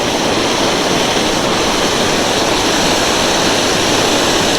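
Waterfall rushing steadily, a constant loud wash of falling water.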